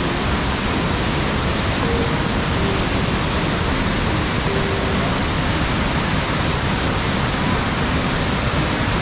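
Waterfall and white-water rapids rushing: a steady, unbroken roar of falling water.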